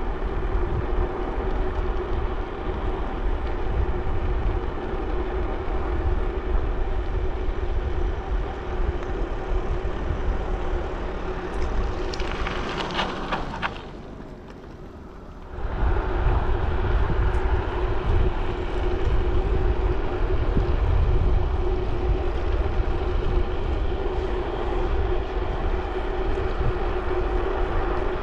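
Wind rushing over the microphone and riding noise from a moving bicycle, with a heavy low rumble and a steady hum. About twelve seconds in come a few sharp clicks, then the noise drops away for about a second and a half before it resumes.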